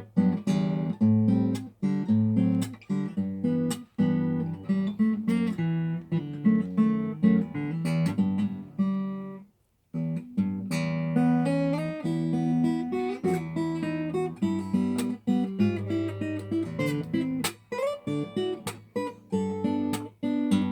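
Acoustic guitar instrumental: plucked notes and chords. The playing breaks off for about half a second near the middle, then starts again.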